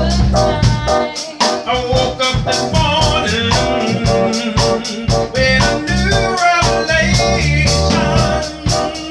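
Live music: a keyboard played over a steady beat, with a voice singing along.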